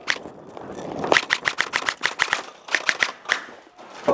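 Airsoft guns firing on full auto: two bursts of rapid clicking shots, about ten a second, one starting about a second in and a shorter one near three seconds.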